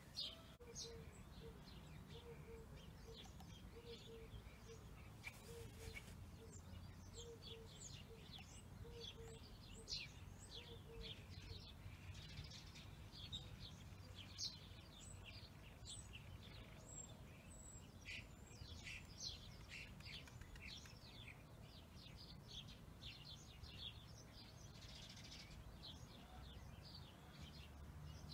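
Faint birdsong: many short, quick chirps from small birds, with a low note repeated over and over through the first ten seconds or so, over a quiet low background rumble.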